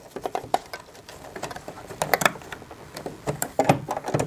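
Irregular clicks and rustles of fabric and zipper tape being handled and positioned under a sewing machine's zipper foot, with no steady stitching run.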